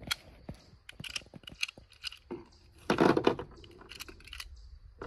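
.45 ACP cartridges being thumbed out of a 1911 pistol magazine one after another, each round clicking free and clinking onto the table. A louder clatter of brass comes about three seconds in.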